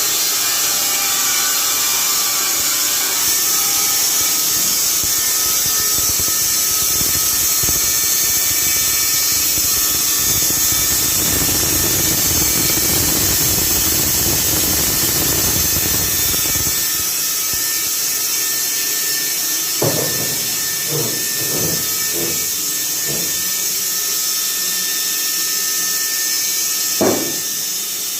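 Carpathian SMFA 100 automatic horizontal band sawmill running with a steady high whine, its blade sawing through a log for about 13 seconds with a rougher, fuller noise before the cut ends. A few short knocks follow near the end.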